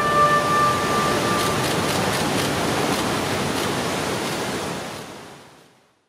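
Roar of heavy breaking surf, a steady rushing noise that fades out to silence near the end. The last held notes of a rock music track ring out under it for the first second or so.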